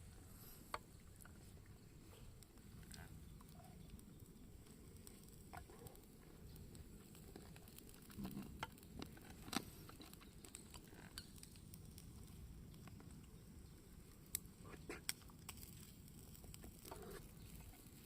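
Near silence: faint low background noise with a few scattered light clicks and taps, the sharpest about halfway through.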